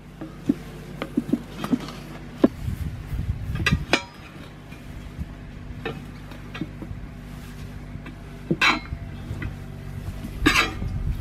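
Tyre lever and tools clinking and knocking against a steel wheel rim while an old, hardened tyre is worked off by hand: scattered sharp metallic clicks, with two longer, harsher bursts, about two-thirds of the way in and near the end.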